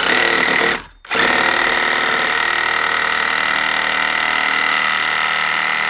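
DeWalt 18 V cordless reciprocating saw with a 6 TPI wood blade cutting through wood: a short run, a brief stop about a second in, then a long steady run with a high whine.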